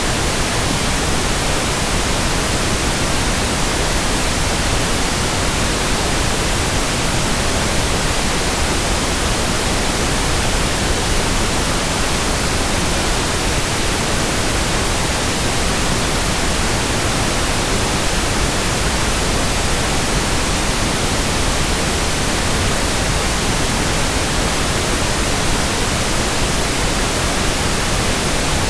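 Synthetic pink noise: a steady, even hiss spread from deep rumble to high hiss, with no change in level.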